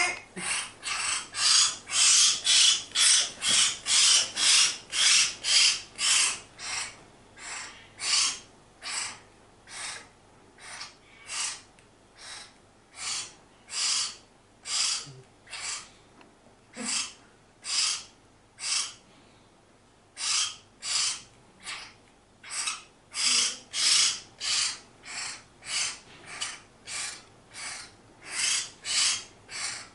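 Hill myna chick calling for food: short, harsh, hissy calls repeated about twice a second, with a brief lull about two-thirds of the way in.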